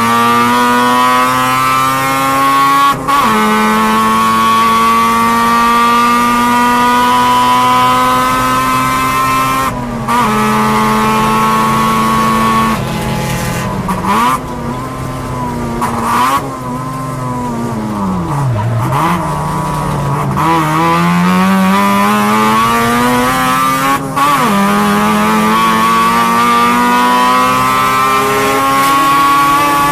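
Mazda RX-7 race car's 13B two-rotor rotary engine at high revs, heard from inside the cockpit. It climbs in pitch through the gears, with a quick upshift about 3, 10 and 24 seconds in. Midway the note falls away with short throttle blips under braking and downshifts, bottoming out around 19 seconds, then climbs again under acceleration.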